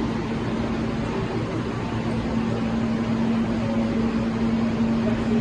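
Steady hum of a stationary R160 subway train with its doors open: the air conditioning and electrical equipment running, with one constant low droning tone over the noise.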